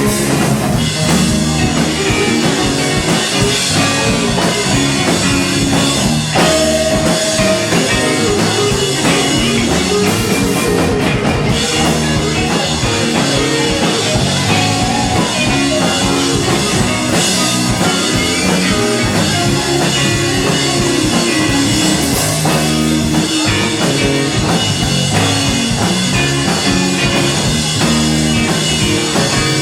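Rock band playing live, guitar and drum kit going steadily, with no singing.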